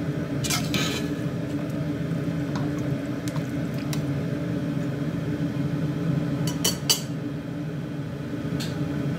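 Metal ladle clinking against a cooking pot while stirring chicken in broth: a couple of sharp clinks about half a second in, another pair near seven seconds and a last one near the end, over a steady low hum.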